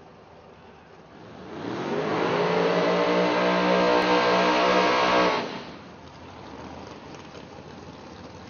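Turbocharged 2004 Mustang X275 drag car doing a burnout. Its engine revs up about a second and a half in and holds high revs for about three seconds with the rear tyres spinning, then drops back to a lower running sound.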